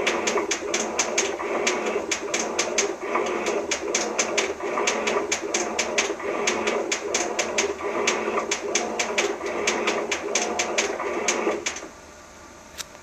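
Washing machine running with a rapid, uneven ticking clatter over a steady mechanical whir. It stops abruptly near the end, leaving a low hum and a single click.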